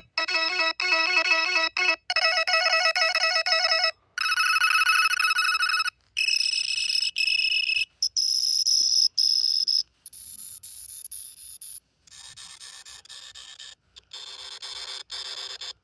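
A run of short electronic sound effects, a new one about every two seconds with a brief gap between: ringtone-like melodies and beeping tones, the ones in the second half quieter.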